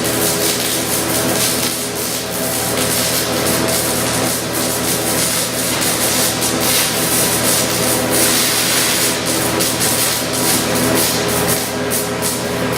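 Wire-feed (MIG) welding arc running continuously: a steady crackling hiss with an unchanging electrical hum from the welder underneath.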